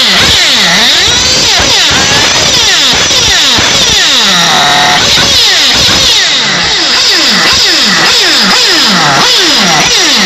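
Kyosho Inferno GT3 RC car's nitro glow engine being blipped, its pitch dropping and rising again over and over, roughly one to two times a second. About four seconds in it settles briefly to a lower, steadier idle before the blipping resumes.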